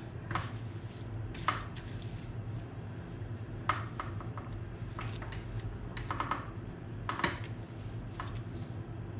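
A steady low electrical hum with a few scattered light clicks and taps, about one every second or so.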